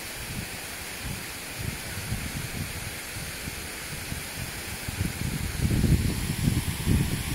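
Steady hiss of rushing water from a stream and small waterfall. From about five seconds in, wind buffets the microphone in low, uneven gusts.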